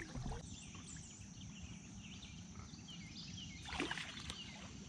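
Quiet river ambience: a low, steady rumble of wind and water, with small birds chirping repeatedly in the background.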